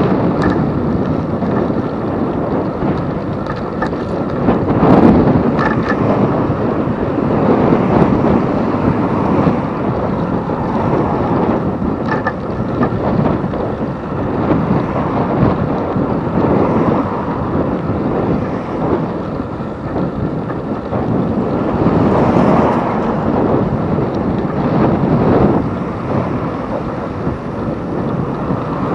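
Wind buffeting the microphone of a camera mounted on a moving bicycle: a loud, continuous rushing that swells and fades.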